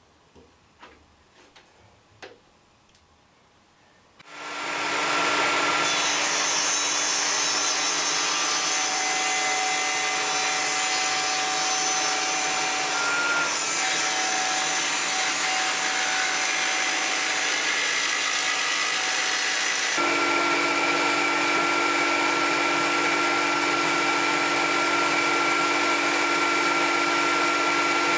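A few light knocks, then a Festool Precisio CS 50 table saw switches on about four seconds in and runs up to a loud, steady whine as a softwood baseboard is fed toward the blade to rip 6 mm off it. The sound changes in tone about two-thirds of the way through.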